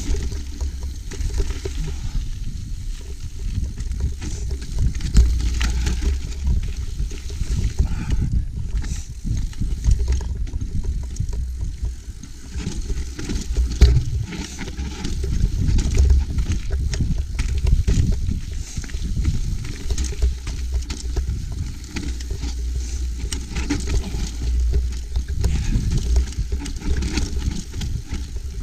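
Gale-force wind buffeting a helmet camera's microphone with a steady low rumble, over the clatter and tyre noise of a mountain bike rolling down a rocky trail.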